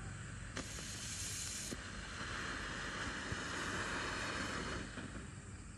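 Happy Boom 'Open Sesame' ground fountain firework spraying sparks with a steady hiss. About half a second in, a sharper, higher hiss runs for about a second. A louder, lower hiss follows and dies down near the end, with a few faint crackles.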